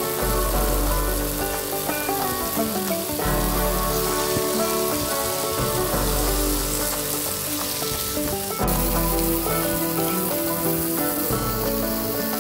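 Sliced fresh wood ear mushrooms sizzling in olive oil in a hot pan as they are sautéed, under background music with low bass notes that change every few seconds.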